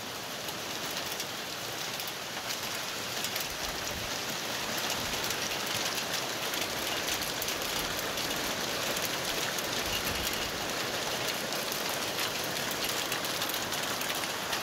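Hail falling: a steady, dense hiss of countless small hits that builds a little over the first few seconds.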